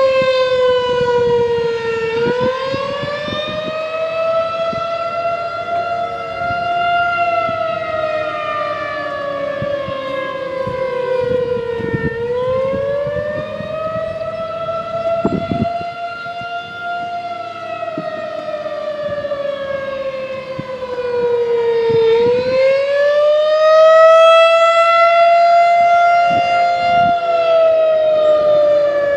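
Federal Signal 2001-SRN electronic outdoor warning siren sounding the attack signal: a wailing tone that rises for about five seconds, then falls for about five, and repeats about every ten seconds. It swells louder in the last cycle.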